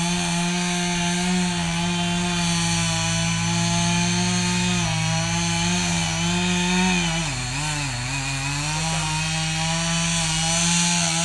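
Chainsaw running steadily at high revs while cutting a tree. Its engine pitch sags and recovers a few times about two-thirds of the way through as it works under load.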